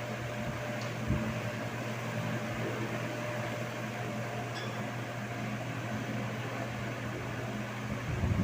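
Tron 60 cm wall fan running steadily: an even rush of air from the blades over a constant low motor hum, with a brief low thump near the end.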